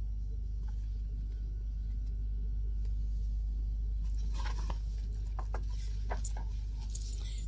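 Steady low hum, with faint paper rustling and a few light clicks in the second half as a picture book's page is handled and turned.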